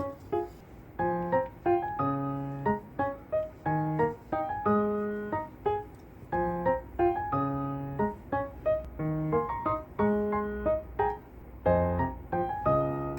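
Background music: a gentle piano melody of plucked-sounding keyboard notes in a steady rhythm, with a soft low beat coming in near the end.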